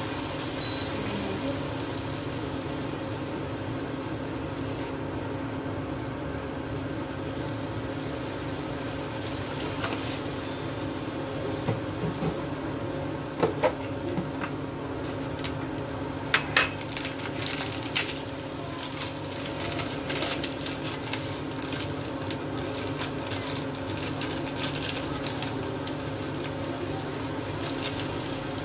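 Induction cooktop humming steadily under a wok of squid sambal frying, with light crackling and a few sharp pops and clicks, the loudest about halfway through. A short beep about a second in as the cooktop's power setting is turned down.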